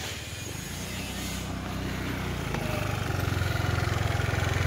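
Small motor scooter engine idling with a steady low hum that grows louder over the few seconds.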